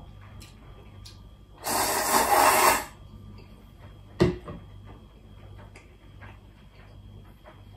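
Loud slurp of udon noodles lasting about a second, followed a little later by a single sharp clack of tableware on the wooden table.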